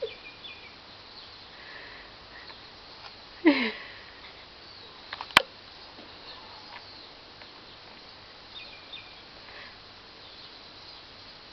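Five-month-old baby giving one short squeal that slides down in pitch, about three and a half seconds in, followed about two seconds later by a single sharp knock.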